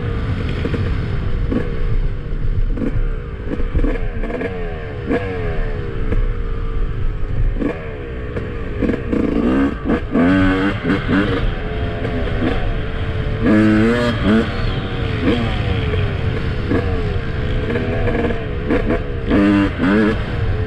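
2007 Yamaha YZ250's single-cylinder two-stroke engine, freshly rebuilt, revving in repeated blips whose pitch rises and falls, with stronger revs about ten, fourteen and twenty seconds in.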